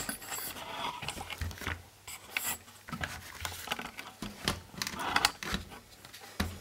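Handling noise from a digital multimeter and its test leads being picked up and moved about: irregular rubbing and scraping with light clicks.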